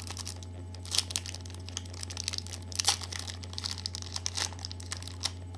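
Baseball card pack packaging being torn open and crinkled by hand: irregular crackling, with two sharper tears, about a second in and near three seconds, over a steady low hum.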